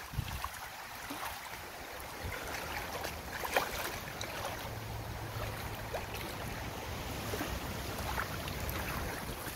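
Shallow lake water sloshing and lapping around a landing net at the bank as a common carp is released, with a short splash about three and a half seconds in as the fish kicks free.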